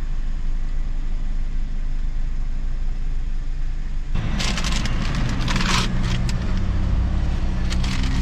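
Car engine idling, heard from inside the cabin. About four seconds in the sound changes suddenly and crackling, rustling noises come in over the engine.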